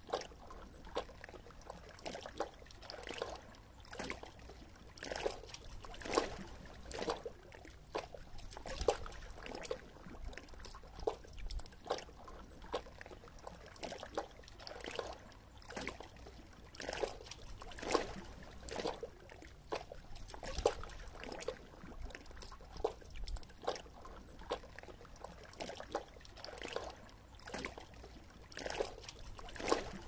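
Small waves lapping and splashing against shoreline rocks: irregular soft slaps, one or two a second, over a low steady wash of water.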